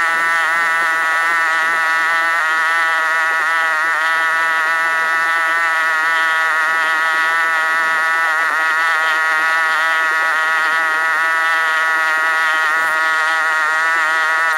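Small boat engine running at a steady speed with a buzzing drone, its pitch wavering only slightly.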